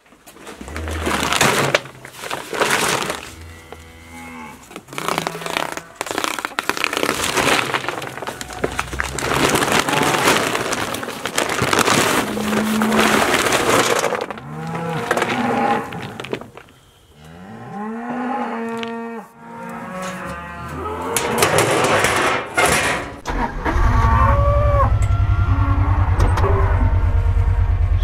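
Range cubes poured from sacks into a Trip Hopper Jr. cube feeder, a series of long rattling rushes, with cattle mooing several times toward the middle. A little after three-quarters of the way in, a Kawasaki Mule UTV engine starts and runs steadily.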